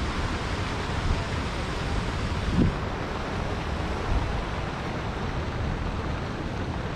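Wind buffeting the microphone over a steady outdoor hiss, with a brief low sound about two and a half seconds in.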